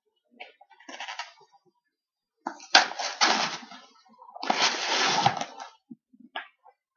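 A mailing package being torn and cut open by hand: a faint rustle about a second in, then two loud, rough tearing bursts of about a second each.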